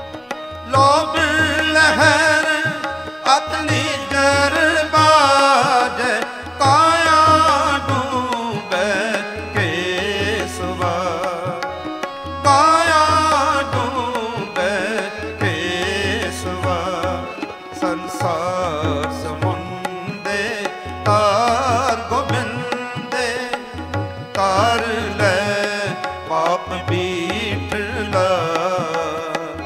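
Sikh kirtan: a man's voice singing drawn-out, wavering, ornamented notes over a steady tabla beat.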